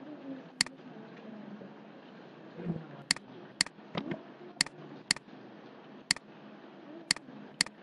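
Computer mouse buttons clicking: about nine sharp, short clicks spread unevenly, several heard as quick double clicks.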